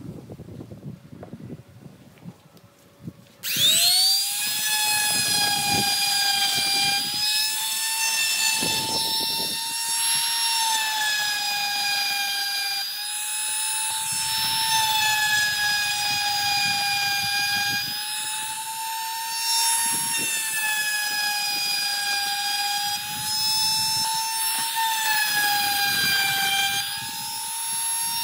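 Handheld electric trim router switched on about three and a half seconds in, quickly spinning up to a loud, steady high whine that wavers slightly in pitch as it cuts along the wooden lattice panel. Before it starts, only light knocks of wood being handled.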